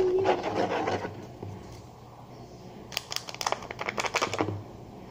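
Homemade slime being worked in a bowl: a quick run of sticky clicks and scrapes about three seconds in, after the last held note of a sung line dies away.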